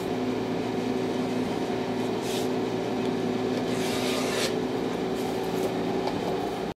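Two shaving strokes of a hand tool along the end of a wooden boat plank, about two seconds in and again around four seconds in, over a steady background hum; everything cuts off abruptly near the end.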